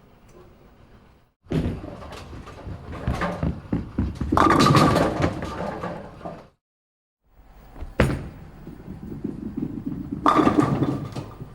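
Two bowling shots: each time a bowling ball rolls down the lane with a rumble that grows louder and ends in a clattering crash of pins. The second begins with a sharp knock as the ball lands on the lane.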